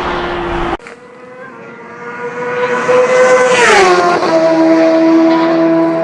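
A motorcycle engine at steady high revs approaches and passes at speed. Its note grows louder, then drops sharply in pitch as it goes by, about four seconds in. Before this, a different steady engine note cuts off abruptly under a second in.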